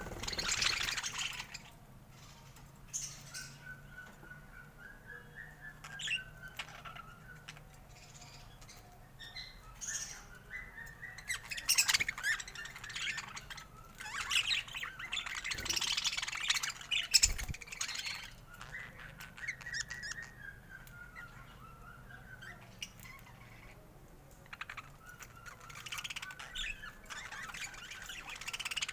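Budgerigar chatter: a soft, wavering warble broken by several louder bursts of harsh squawking chatter.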